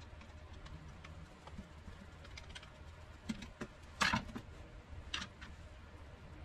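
Light clicks and scrapes of a screwdriver working in a taken-apart drill chuck, then about four seconds in a sharper clatter as the chuck and screwdriver are set down on the workbench, followed by a few light taps of the chuck parts being handled. A low steady hum lies underneath.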